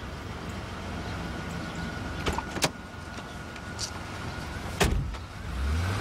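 Car engine idling low while door clicks sound and a car door is shut with a knock about five seconds in. Just after, the engine note rises as the car pulls away.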